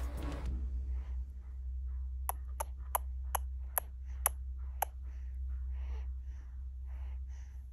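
Music cuts off just after the start. Then a newborn baby sucks on a pacifier: a run of sharp, irregular clicks, a few a second, followed by soft breathy sounds, over a low steady hum.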